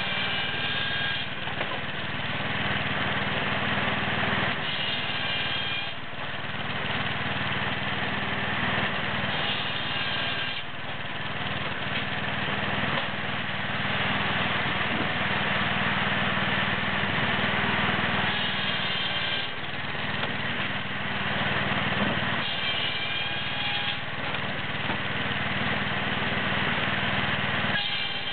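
Small engine of a log splitter running steadily, with a higher-pitched whine that comes and goes every few seconds as the machine works.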